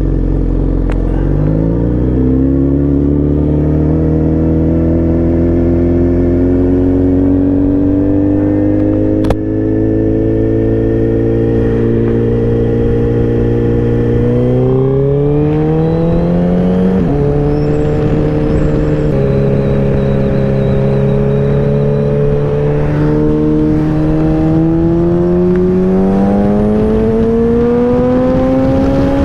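Suzuki Hayabusa sportbike's inline-four engine under way, the rider working it up through the gears. The engine note climbs slowly, then rises faster about halfway. It drops sharply twice at upshifts and climbs again near the end.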